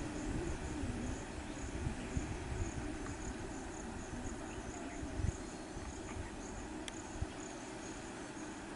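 Insects chirping in a steady high chorus, pulsing about twice a second, over a low rumble, with one sharp click about seven seconds in.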